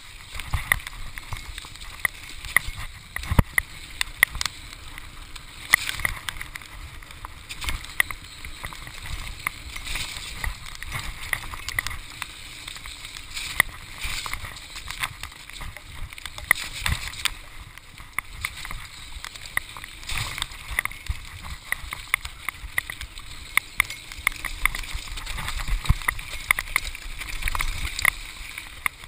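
Mountain bike riding fast down a dirt forest trail: tyres rumbling over the ground, with frequent sharp rattles and clacks from the bike over the bumps and wind rushing past.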